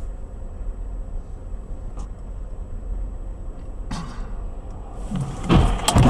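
Low, steady engine and road rumble heard inside a moving car, with a couple of faint clicks. About five and a half seconds in come sudden loud thumps and a surge of noise, as the car's dashcam view is jolted into a blur.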